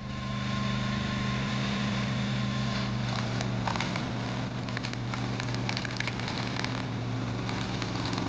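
A hydraulic log splitter's motor running steadily. From about three seconds in, the wood crackles and snaps as the ram forces a log through the splitting wedge.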